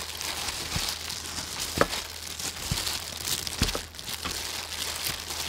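Gloved hands in thin plastic food-prep gloves squeezing and tossing curly instant noodles on a steel tray: a steady crinkling rustle of plastic and noodles, with a few brief clicks.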